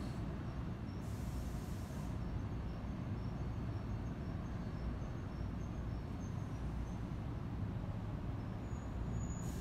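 Steady low outdoor rumble with no train passing close by. Faint high insect chirps repeat a few times a second.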